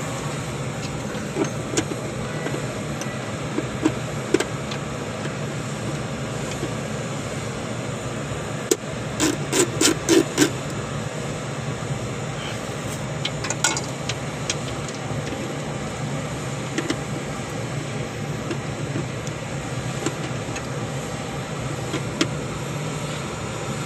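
Steady machinery hum in a Dash 8 Q400 cockpit, with scattered sharp clicks and taps from parts being handled. A quick run of about six knocks comes about ten seconds in.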